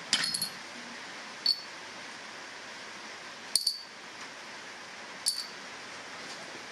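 Small hammered copper pendants set down one at a time on a rusty steel anvil: four sharp metallic clinks a second or two apart, each with a short bright ring, over a steady hiss.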